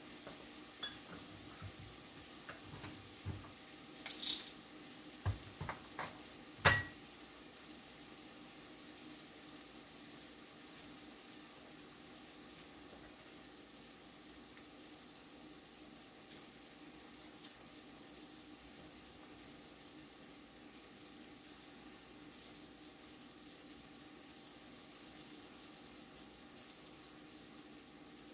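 Slices of meat sizzling faintly in a cast-iron skillet. In the first seven seconds a few sharp clicks and knocks come from work at the counter, the loudest about seven seconds in.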